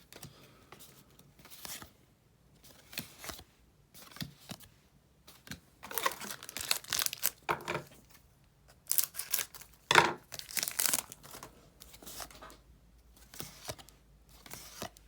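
Booster pack wrapper being torn open and crinkled, in scattered short rips and rustles that are busiest in the middle, with the loudest rip about two-thirds of the way through.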